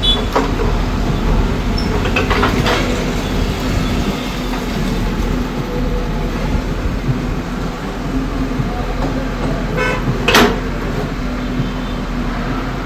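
Heavy machinery's engine running steadily with a low hum, with a few sharp knocks: a couple about two and a half seconds in and a louder one near the end.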